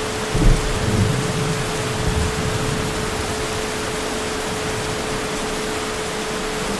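Heavy rain falling steadily, with a low rumble of thunder that starts about half a second in and fades away over the next two seconds.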